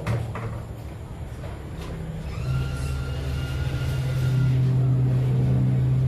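A couple of sharp clicks at the start. Then, from about two and a half seconds in, a motor vehicle engine runs steadily nearby, getting louder, with a thin whine over it for a second or two.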